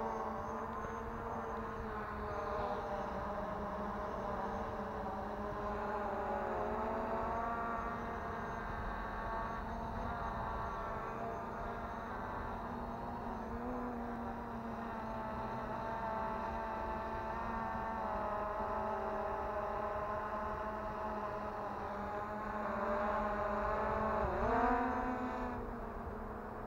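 MJX Bugs 3 Pro quadcopter's motors and propellers whining, with several tones that drift up and down as the throttle changes. About 24 seconds in the pitch dips, then rises sharply and grows louder as the drone climbs.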